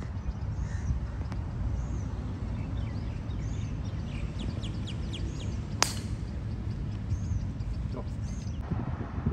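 A golf club strikes the ball once, a single sharp click about six seconds in. Underneath it, wind rumbles on the microphone and birds chirp repeatedly.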